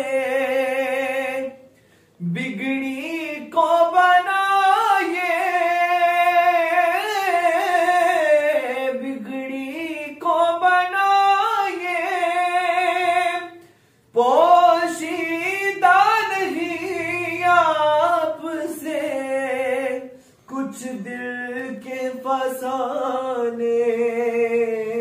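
A man singing a naat in a high voice, long held and ornamented notes with vibrato, one voice with no instruments heard. The phrases break off for breath about 2 s, 14 s and 20 s in.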